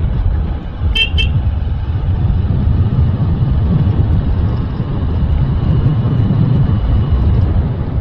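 Steady low rumble of wind and road noise on a moving motorcycle, with two quick horn beeps about a second in.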